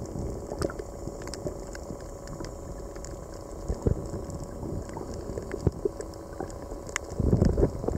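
Underwater reef ambience picked up by a submerged camera: a steady muffled wash with scattered sharp clicks and crackles throughout, and a louder low rush of water near the end.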